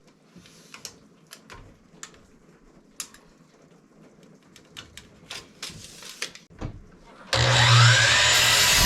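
Light clicks and knocks of wood and tools being handled, then, near the end, a power saw starts abruptly and runs loud and steady with a shifting whine as it cuts through 2x6 lumber.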